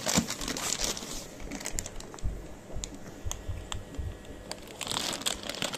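Plastic fish-transport bags crinkling and rustling as they are handled, with scattered clicks and a few soft low bumps. The crinkling is thickest at the start and again near the end.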